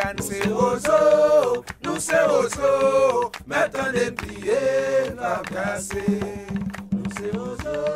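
Music: a song with voices singing long, sliding notes over light percussion.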